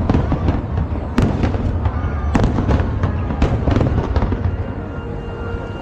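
Aerial fireworks display: shells bursting in irregular sharp cracks and bangs, several a second, over a continuous low rumble of overlapping explosions.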